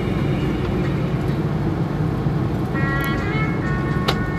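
Steady road and engine rumble heard from inside a car driving on a highway, with music playing underneath. A held set of higher steady notes comes in about three seconds in, and there is one sharp click just before the end.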